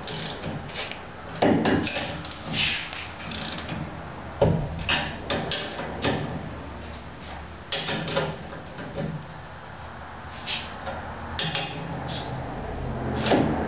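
Hand ratchet and socket clicking in short irregular bursts while running down the U-bolt nuts that clamp a trailer's leaf spring to its axle, with a few sharp metal knocks as the socket is set on and lifted off the nuts.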